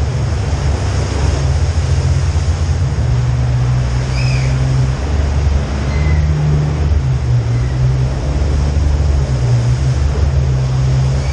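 A four-wheel-drive vehicle's engine running steadily at a slow crawl, a continuous low hum. A few faint high squeaks come about four and six seconds in.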